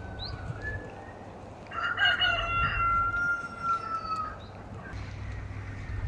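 A rooster crowing once: a single long call that starts a little under two seconds in and lasts about two and a half seconds, dipping slightly in pitch as it ends.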